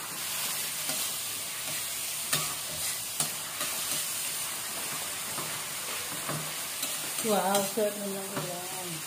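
Burong isda with tomatoes sizzling in oil in an aluminium wok, stirred and scraped with a metal ladle, with a couple of sharp ladle knocks against the pan a few seconds in. A short voice-like sound rises over the sizzle about seven seconds in.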